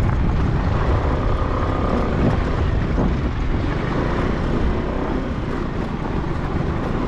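A vehicle driving along a rough dirt road, its engine running with a steady low rumble and no change in pace.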